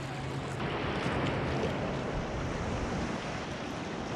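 Shallow sea water lapping and sloshing close to the microphone around a sea kayak, with wind buffeting the microphone. A few faint ticks sound through it, and the water noise swells for a couple of seconds from about half a second in.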